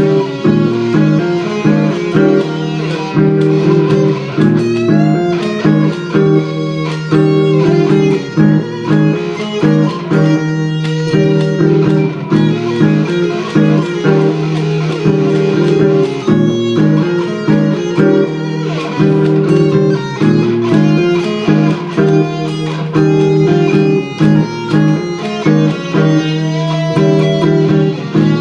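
Gibson Les Paul electric guitar playing a lead line with string bends over a looped chord part from a Boss loop pedal.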